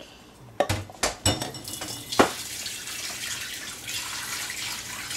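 A few sharp knocks, then a kitchen tap running steadily from about a second and a half in.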